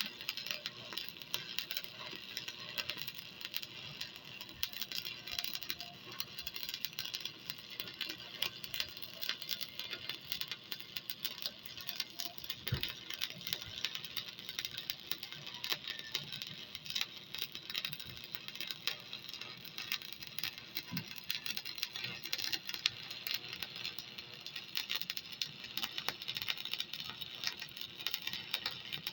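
Electric arc welding: the arc crackles and sizzles steadily as a weld bead is laid, without a break.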